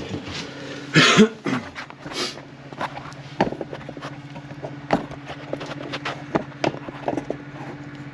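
Scattered clicks and light knocks of an electric dryer's metal parts being handled during disassembly and lint removal, over a steady low hum. A short harsh burst about a second in is the loudest sound, with a fainter one just after two seconds.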